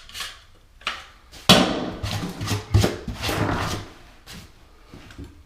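Shower drain parts being handled on a work surface: a sharp knock about a second and a half in, then a few seconds of rubbing and clattering with more knocks, dying away near the end.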